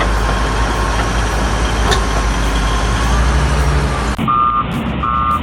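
Komatsu D375A-5 bulldozer's diesel engine running with a steady low rumble. About four seconds in it cuts abruptly to a Volvo L220F wheel loader's reversing alarm, beeping twice.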